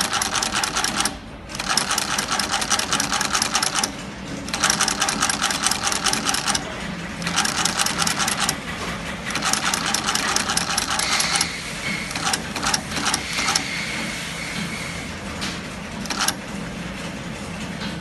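Industrial sewing machine stitching the seam of a leather cricket ball: fast, even needle strokes in runs of a second or a few seconds with short pauses between, turning to slower, intermittent stitches in the second half.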